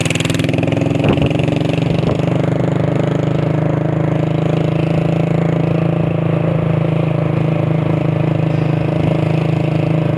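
Small motorcycle engine running at road speed, a steady drone that climbs a little in pitch in the first second or so and then holds even.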